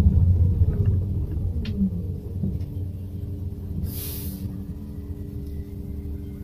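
Xiamen King Long electric midibus slowing to a stop, heard from inside the cabin: the low road rumble fades over the first couple of seconds and a steady hum sets in. About four seconds in comes a short hiss of air from the air brakes.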